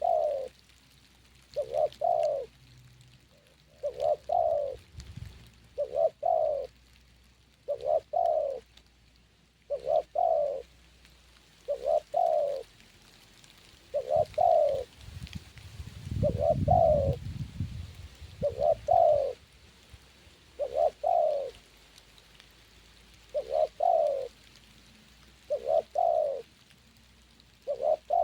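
Spotted dove (terkukur) cooing, a short phrase of coos repeated about every two seconds, with a low rumble in the background about halfway through.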